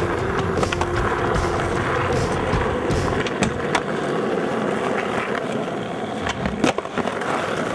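Skateboard wheels rolling on rough asphalt, with several sharp clacks of the board, the loudest about midway and again near the end.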